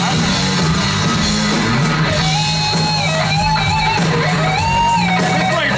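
Live rock band playing with no singing: a distorted electric guitar lead holds and bends notes over bass and steady drums and cymbals.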